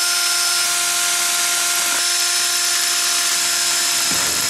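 Ridgid drill running at a steady speed, its motor whining evenly as it drills a mounting hole in the car's body panel.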